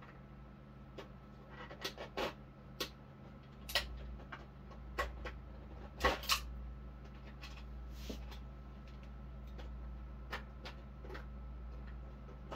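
Irregular clicks and crackles of plastic packaging being handled as a small plastic Dragon Ball accessory is worked free of it, over a faint steady hum.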